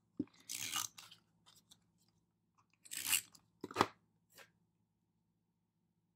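Paper and photo prints being handled at a desk: a click, then short crisp rustles and crinkles, about a second in and again around three to four seconds in.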